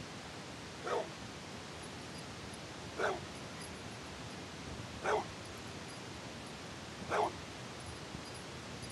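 A dog barking: four single barks, evenly spaced about two seconds apart.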